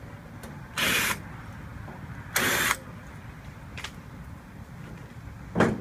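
Cordless drill/driver running in two short bursts, backing out the screws that hold the furnace's control panel, with a brief knock near the end.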